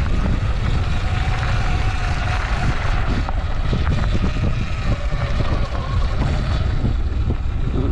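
Sur Ron electric dirt bike ridden along a dirt trail: wind buffeting the microphone over tyre and chassis rumble, with a faint steady whine from the electric motor in the first few seconds.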